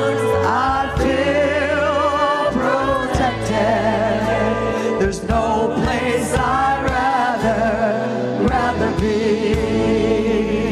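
Gospel music: several voices singing long, wavering notes with vibrato over steady instrumental backing.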